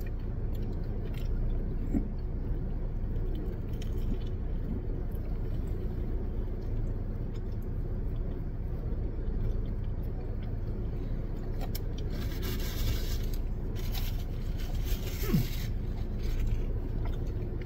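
Steady low hum inside a parked car's cabin while two people eat sandwiches, with a few small clicks and two short bursts of crinkling about twelve and fourteen seconds in.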